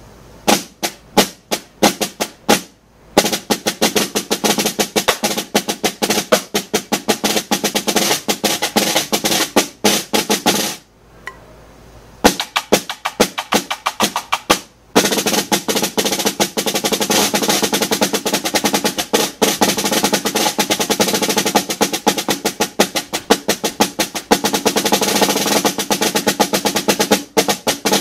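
Snare drum played with wooden drumsticks: a few single accented strokes, then fast rolls and rudiment patterns. The playing drops out briefly around eleven seconds in, then starts again and runs densely from about fifteen seconds on.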